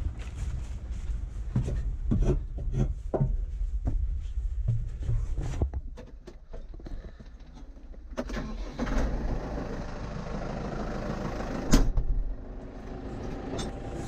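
Irregular knocks and rustles for the first few seconds. Then a tractor engine starts about eight seconds in and runs at a steady idle, with one sharp clack near the end.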